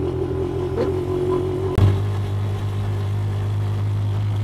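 Auto-rickshaw's small engine running steadily under way, heard from inside the cabin as a low drone. A sharp knock comes a little under two seconds in, after which the hum is louder and steadier.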